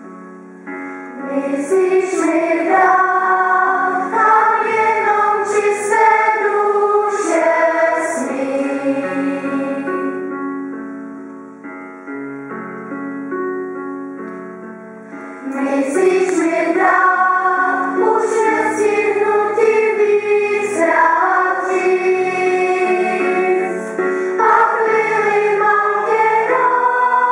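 Children's choir singing a song in parts. About ten seconds in the singing drops to a quieter passage, and the full choir comes back in at about fifteen seconds.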